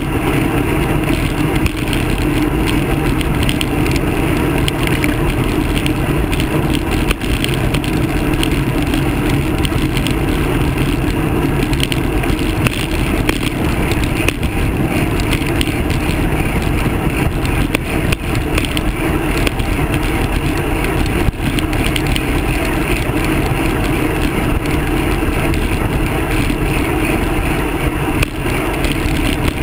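Steady wind buffeting the microphone of a camera on a moving road bike, with tyre and road noise.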